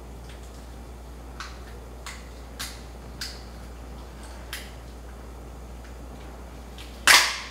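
Raw blue crab shell being pried and torn apart by hand: a few sharp cracks and snaps, then a louder, longer crunching crack near the end.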